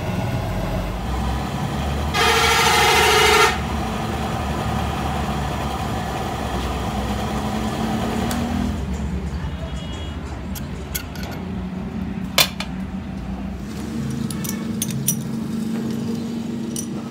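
Steady machine hum, with a loud horn blast of about a second and a half about two seconds in. Later come a few sharp metallic clicks and knocks as a lathe chuck is worked with its key.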